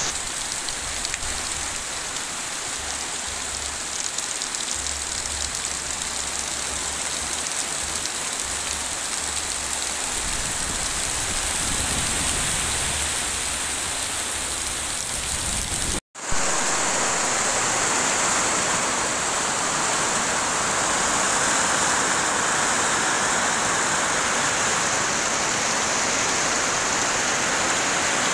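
Heavy rain pouring down in a steady hiss, with a low rumble underneath in the first part. About sixteen seconds in it cuts out for an instant and comes back as a brighter, hissier downpour.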